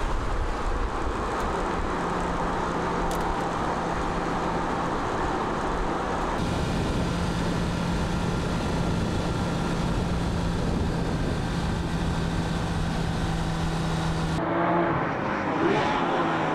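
Porsche 911 GT3 RS flat-six engine running at steady revs, a constant drone with road noise. The sound changes abruptly about six seconds in and again near the end, after which the engine note rises and falls.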